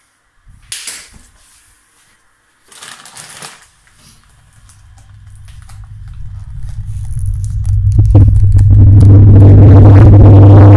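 A few quiet rustles, then a low buzzing drone that swells steadily from about four seconds in until it is very loud and distorted.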